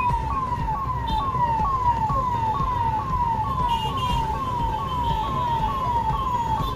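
Emergency vehicle siren wailing in a fast, repeated falling sweep, about two cycles a second, over the low rumble of jammed road traffic.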